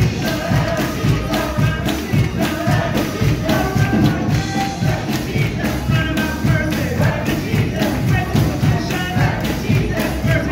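Live gospel-style church music: singing voices over a steady beat with tambourine.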